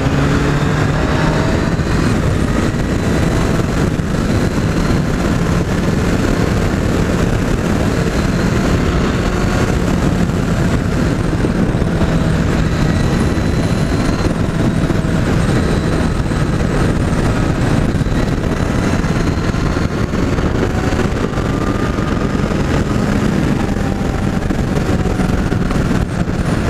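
Kawasaki Z800's inline-four engine running at a steady cruise through its stock exhaust, its pitch shifting only a little, under a heavy rush of riding wind on the microphone.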